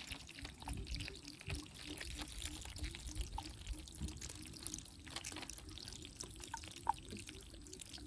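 Faint trickle and drips of river water.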